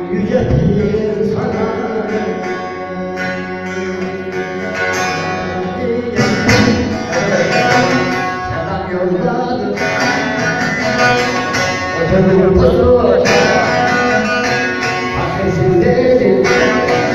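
Bağlama (long-necked saz) strummed and plucked, with a voice singing an Alevi devotional song (deyiş) over it; a few hard strokes stand out along the way.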